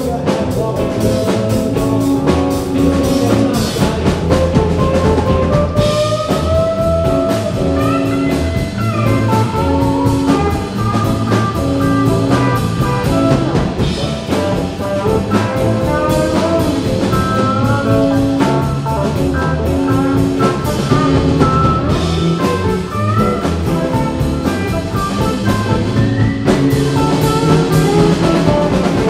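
Live blues-rock band playing an instrumental passage: an electric guitar lead with bending notes over electric bass and a drum kit.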